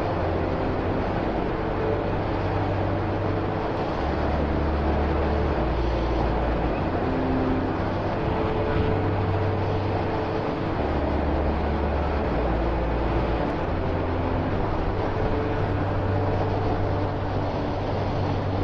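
Motorcycle riding along at road speed, heard from an onboard camera: a steady rush of wind over the microphone, with the engine note underneath.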